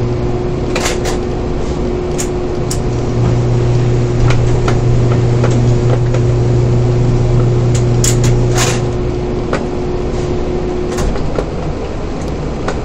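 Container crane's hoist machinery heard from the operator's cab while lowering a hatch lid on the spreader: a steady hum with scattered clicks and knocks. The hum cuts out near the end as the lowering stops.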